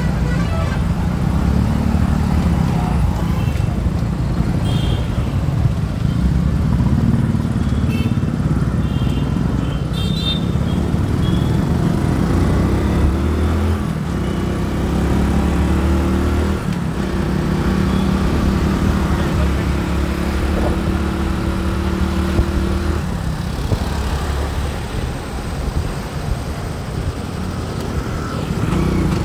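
Road traffic noise: a continuous rumble of vehicle engines and tyres, with one engine's drone holding steady through the middle stretch.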